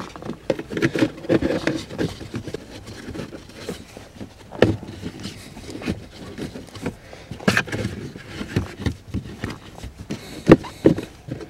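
New cabin air filter being worked by hand into its plastic housing under the dashboard: irregular scraping and rustling with small clicks and knocks. Three sharper knocks come about three seconds apart, the last one the loudest.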